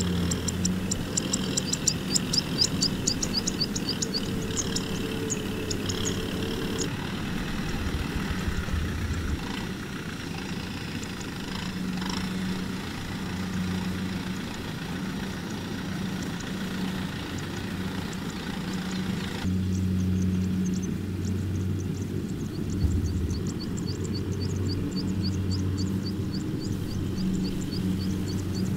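Farm tractor diesel engines running steadily under load, pulling trailers of rice sacks, with the sound changing abruptly twice where the footage cuts. A rapid high-pitched ticking runs over the engine for the first several seconds and again for much of the later part.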